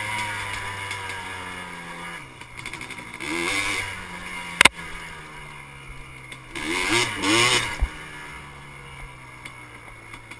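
Yamaha Blaster ATV's two-stroke single-cylinder engine running at part throttle, blipped up in two short revs about three and a half and seven seconds in. A sharp knock comes between the two revs.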